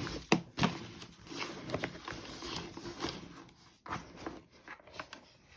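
A product box being opened and handled by hand: irregular clicks, taps and rustling scrapes, with a sharper snap just after the start.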